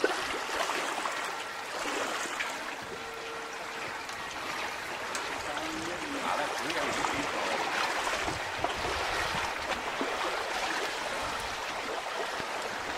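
Lake water lapping and trickling against a moored boat and a wooden fishing platform: a steady, even wash of small waves.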